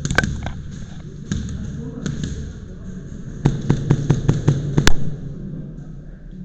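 Airsoft guns firing: a few scattered single shots, then a rapid string of about nine shots over a second and a half near the middle.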